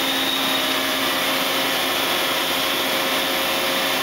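Steady whir with a faint hum from a Daewoo DNB 130R CNC horizontal boring mill as its 5-inch spindle bar retracts into the head.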